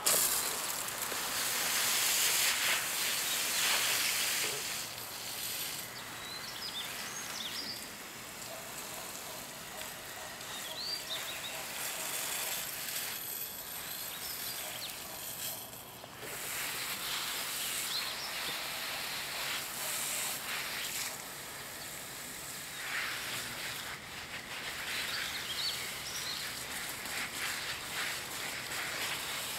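Water hissing from a garden hose spray wand onto a flower bed, strongest in the first few seconds and coming and going after that. Songbirds chirp briefly now and then over it.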